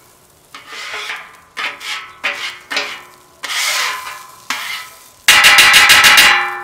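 A metal scraper is pushed in short strokes across the Royal Gourmet flat-top griddle's cooking plate, scraping off cooking residue after the cook. There are about eight rasping scrapes. The last, about five seconds in, is the loudest and longest, with a ringing metallic tone.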